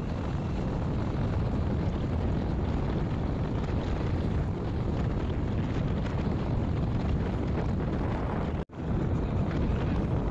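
Wind rushing over the microphone of a phone on a moving motorcycle, a steady low roar with the bike's running and road noise mixed in. The sound cuts out for an instant late on.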